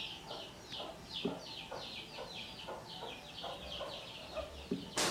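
Chickens calling: a steady run of short, high, falling chirps, about three a second, with lower clucks under them. A sharp knock sounds near the end.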